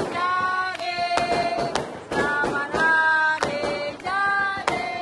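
A small group of people singing a birthday song together, with hand claps between the held sung notes.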